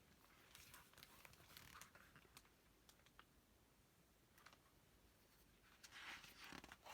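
Faint paper rustling and light clicks of a picture book's pages being handled and turned, in two short spells: one early and one near the end.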